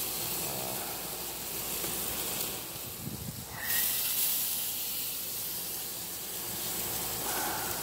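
Steady hissing sizzle from parboiled chicken thighs cooking on a hot gas grill's grates. It drops out briefly about three seconds in under a low rumble.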